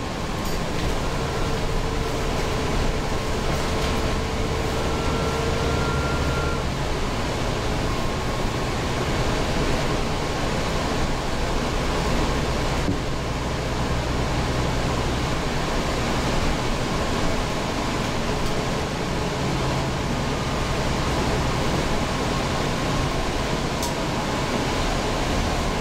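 Inside a New Flyer Xcelsior XD40 city bus on the move: a steady drone from its rear-mounted Cummins ISL9 diesel, mixed with road and ventilation noise. A faint steady whine sits on top for the first several seconds.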